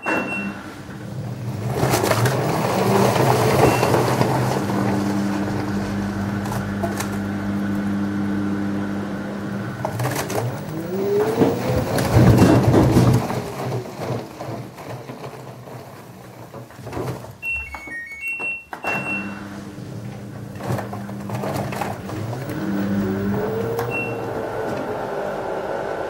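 LG Direct Drive front-loading washing machine turning its drum with laundry inside: the direct-drive motor hums steadily, its whine rising then falling in pitch as the drum speeds up and slows twice, with the load tumbling loudest during the first rise. A short run of electronic beeps from the control panel sounds about three-quarters of the way through.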